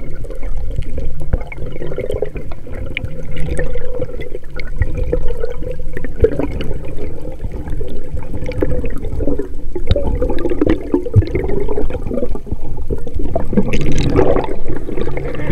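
Water sloshing and bubbling as a spearfisher moves through the sea, with scattered clicks throughout and louder water noise near the end.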